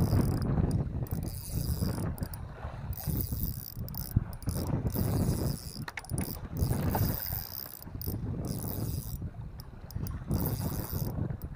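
Fishing reel ratcheting in spurts with short pauses as a fish pulls line off the spool, the sign of a fish running with the bait before the hook is set.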